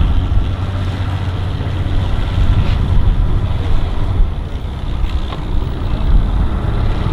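Boat outboard motors running at idle, a steady low rumble, with wind buffeting the microphone.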